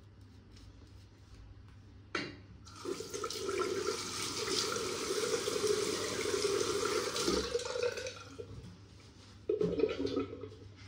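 Water running from a tap into a bathroom sink. It comes on suddenly about two seconds in, runs steadily for about five seconds, then stops, and a short second splash follows near the end.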